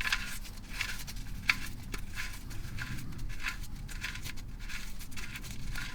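Light metallic clicks and clinks, about one or two a second, of tools and parts being handled during an oil change, over a faint low steady hum.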